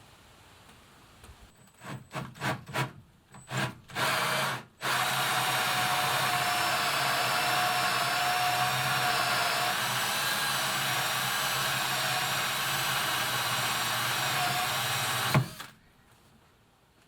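Power drill: a few short trigger bursts, then about ten seconds of steady running that cuts off suddenly.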